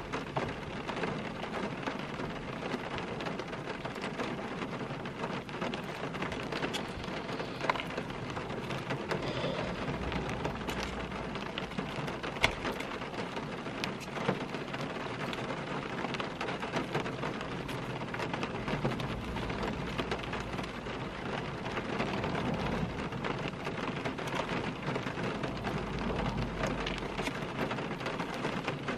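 Steady rain pattering on a car's roof and windows, heard from inside the cabin as an even hiss of many small drop ticks.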